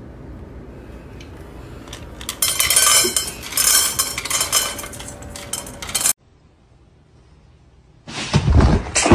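Dry kibble clattering and clinking in a stainless steel bowl under an automatic pet feeder, starting about two seconds in and running for about four seconds before it cuts off suddenly. A loud, unrelated sound starts near the end.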